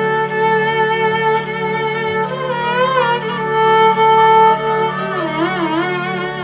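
Electric violin playing a slow melody of long bowed notes with wavering vibrato, the loudest a note held about four seconds in, over a steady low hum.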